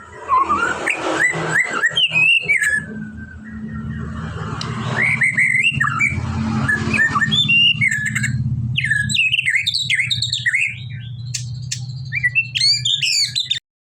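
White-rumped shama (murai batu) in full song, a run of varied whistled and chattering phrases rising and falling in pitch, over a low steady hum. The sound cuts off abruptly near the end.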